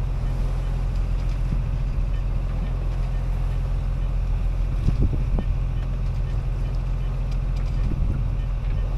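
A sailing yacht's inboard diesel engine running steadily under way, a low drone over a constant hiss.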